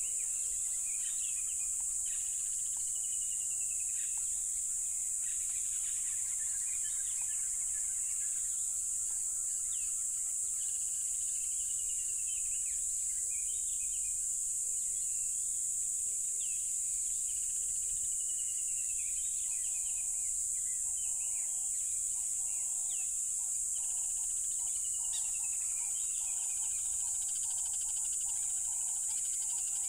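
Crickets trilling in a loud, steady, high-pitched chorus, with birds calling over it in whistled, gliding notes and short chirps. About two-thirds of the way through, a lower call of repeated notes starts, the notes coming faster and faster.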